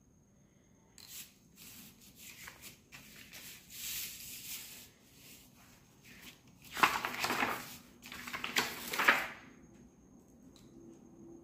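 A utility knife cutting out a stencil sheet: a run of scratchy scraping strokes as the blade drags through the sheet, along with rustling as the sheet is handled and turned, the two loudest strokes near the end.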